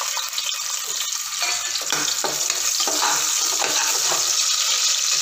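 Sliced onion sizzling in hot ghee with whole spices, a steady frying hiss, while a spoon stirs it with short scraping strokes against the cooker.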